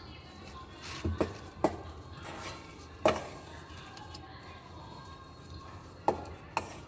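A metal knife blade clicking and scraping against the rim of a wire-mesh strainer and the stone countertop while cutting circles of rolled momo dough: sharp, brief clicks, three in quick succession in the first two seconds, one about three seconds in, and two more near the end.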